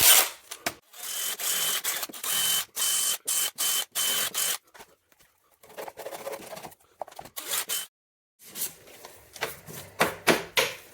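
Power drill run in a series of short bursts, each with a high motor whine, smoothing the cut edge of a fibreglass side skirt. After a few seconds it gives way to quieter, scattered scraping.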